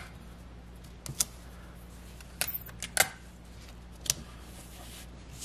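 Paper pattern pieces being handled and taped down: a handful of short, sharp paper-and-tape crinkles and taps, over a faint steady hum.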